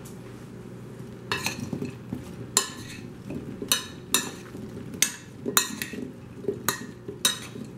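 Metal spoon stirring whole Brussels sprouts in a glazed ceramic bowl: the sprouts tumble and the spoon scrapes and clinks against the bowl, about one to two strokes a second, starting about a second and a half in.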